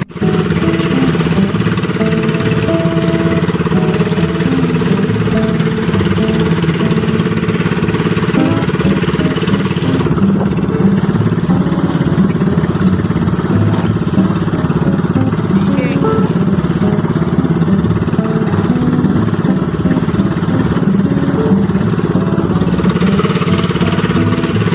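Engine of a motorized outrigger fishing boat (bangka) running steadily at cruising speed, a loud, even drone.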